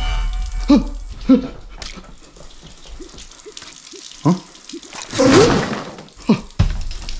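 Faucet water running into a stainless steel sink, with a few short voiced sounds spread through. A louder rushing sound comes about five seconds in, and music starts near the end.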